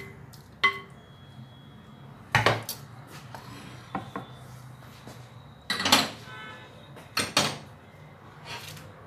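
Kitchen handling sounds: a wooden spoon against a clay cooking pot, then a wooden chopping board and a plate set down on the counter. A handful of separate knocks and clatters, the loudest about six seconds in with a short ring.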